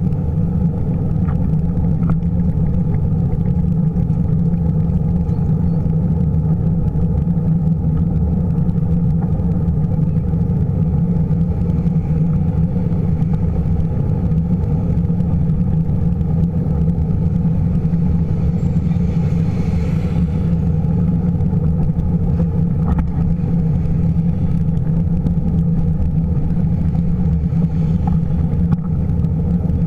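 Steady low rumble of wind buffeting a bike-mounted camera's microphone while riding, with road traffic running alongside. A passing vehicle's hiss swells and fades about two-thirds of the way through.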